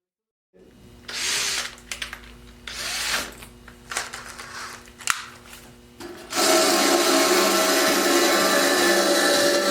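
A small handheld power tool starts up and scrubs rust off bare steel. In the first seconds it touches the metal in a few short bursts, then from about six seconds in it grinds steadily and loudly.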